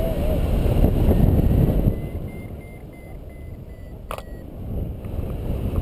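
Wind buffeting the camera's microphone in flight, easing after about two seconds. Then a paragliding variometer gives a quick run of short beeps at one pitch, the signal that the glider is in lift, and a single sharp click follows about four seconds in.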